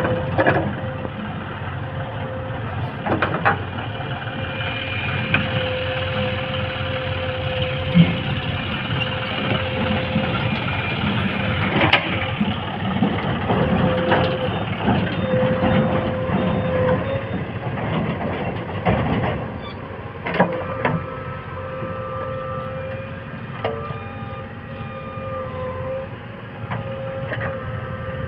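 Diesel engines of a JCB 3DX backhoe loader and tractors running steadily, with scattered knocks through the run.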